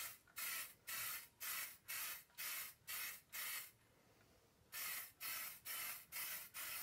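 Aerosol lacquer spray can fitted with a trigger handle, sprayed in short hissing bursts about two a second, with a pause of about a second midway.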